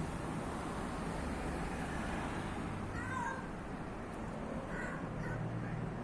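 Hungry stray cat meowing: two short meows, about three seconds in and again about five seconds in, over steady background hiss.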